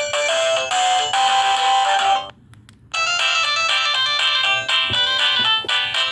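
LG SD2130 phone's speaker playing synthesized polyphonic ringtone melodies, several notes sounding together. The tune breaks off about two seconds in, and after a short pause a busier ringtone passage starts.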